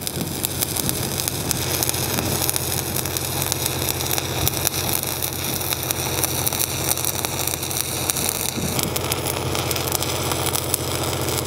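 Shielded metal arc (stick) welding with a 7018 low-hydrogen rod, the arc crackling steadily as the fillet pass is run. A steady engine hum from the welding machine runs underneath.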